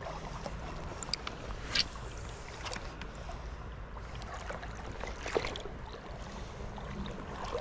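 Shallow creek water lapping and splashing around a wading angler's legs, with a few small sharp splashes over a low steady rumble.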